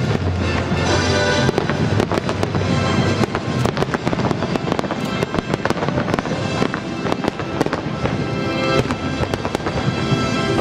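Aerial firework shells and comets bursting in rapid succession, a dense run of sharp bangs and cracks, over the pyromusical show's music, which stands out most near the start and end.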